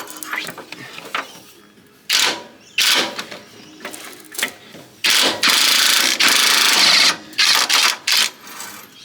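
Impact wrench undoing the vehicle's subframe bolts: two short bursts, then a run of about two seconds, then a few more short bursts.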